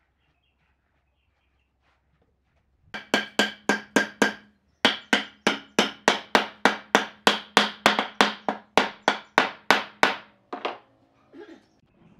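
Fast, even hammer blows on glued pine boards, about four to five a second, driving the boards together on their edge nails; each blow rings a little. The run starts about three seconds in, breaks off briefly, then goes on and stops well before the end, followed by a few lighter knocks.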